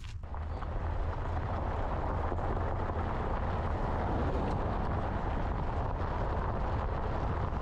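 Car in motion heard from inside the cabin: a steady low road and engine rumble with tyre noise, building up over the first second after the doors are shut.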